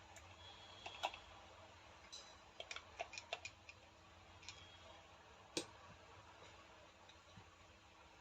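Scattered light clicks and taps of small rotary hammer parts being handled and fitted together during reassembly, a quick cluster of them about three seconds in and one sharper knock a little later, over a faint steady hum.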